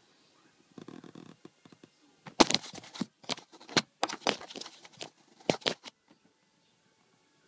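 A white cat nosing, rubbing and bumping against a phone inside a cardboard box, right at the microphone. A faint rustle comes about a second in, then a run of sharp scratches and knocks lasting about three seconds.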